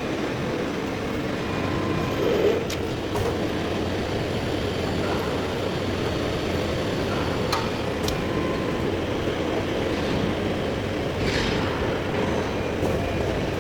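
Heavy-duty lathe turning a large steel part: a steady mechanical rumble, with a few sharp clicks about three, seven and eight seconds in.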